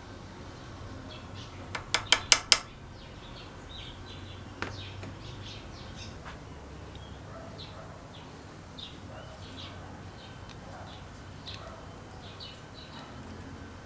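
A quick run of about five sharp clicks about two seconds in, over scattered faint high chirps like birdsong.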